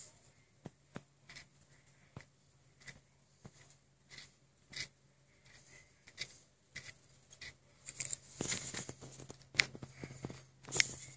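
Close handling noise: scattered small clicks and taps, with a denser burst of paper-like rustling about eight seconds in, over a faint steady low hum.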